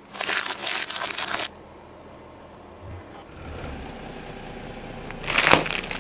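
Car tyre rolling over ornamental Christmas balls, a loud crunching crackle for about a second that cuts off abruptly. A few seconds later, after a low rumble of the slowly rolling tyre, a second burst of crackling with one sharp crack as the tyre runs over a sealed packet.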